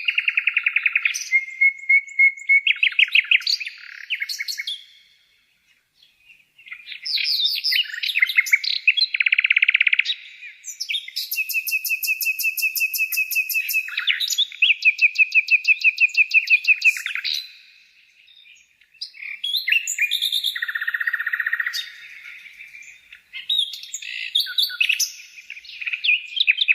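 Songbirds singing a run of varied phrases: fast trills, chirps and clear whistles, with short breaks about five seconds in and again near eighteen seconds.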